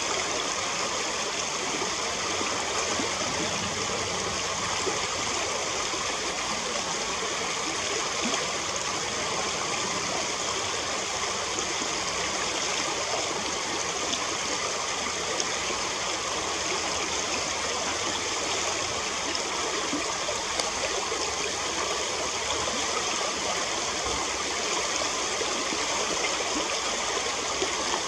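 River water running, a steady, even rush without breaks.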